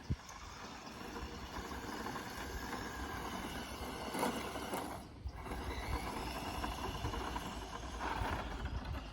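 Battery-powered electric RC car driving over rough ground: a steady rattling hum of motor, gears and tyres with a low rumble of vibration. The sound drops away briefly about five seconds in.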